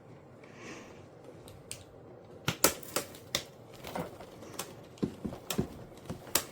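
Sharp plastic clicks and knocks as the dust bin of a cordless stick vacuum is opened and handled. They start about two and a half seconds in and run as an uneven string of about a dozen, the first few the loudest.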